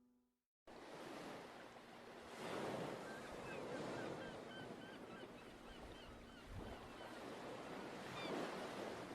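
The last music notes fade out and stop, then surf washing in swells with many short bird calls over it, some of them honking.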